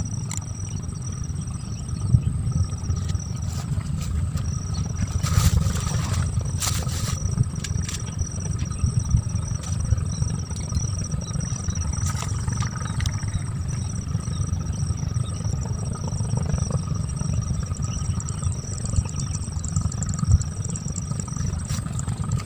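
Wind buffeting the microphone: an uneven low rumble, with a faint steady high-pitched whine behind it and a few clicks about five to seven seconds in.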